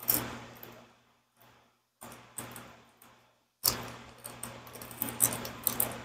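Plastic crinkling and rustling with small sharp clicks as gloved hands handle seasoning packets over a bowl of noodles. It comes in several bursts with short gaps, and the longest and loudest burst is in the second half.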